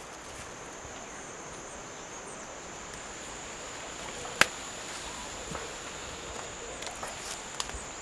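Steady high buzz of insects, with a sharp snap about halfway through as a large leaf is broken off a plant, and a few lighter cracks of stems and leaves being handled after it.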